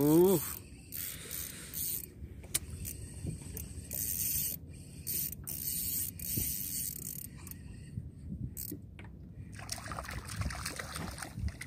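Fishing reel being wound in stop-start spells, its gears giving a hissing whirr, with a few sharp clicks in between.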